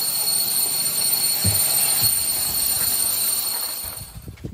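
Power drill running steadily with a high whine, then stopping about four seconds in.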